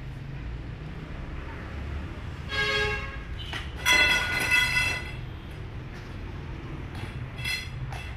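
A vehicle horn honks three times over a steady low rumble: a short honk, a longer and louder one about a second later, and a brief one near the end.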